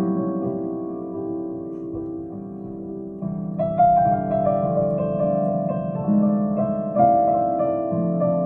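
Piano or keyboard played slowly in sustained chords, fading softer for a couple of seconds and then picking up again with louder struck notes from about three and a half seconds in.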